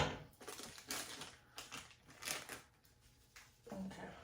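Seafood seasoning being shaken out of its package into the pot, with the packaging rustling: a run of short, scratchy bursts.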